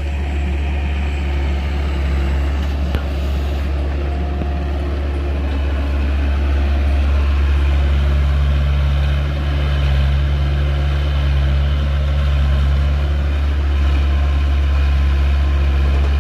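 Long-arm excavator's diesel engine running steadily, its note growing stronger and a little louder from about halfway through.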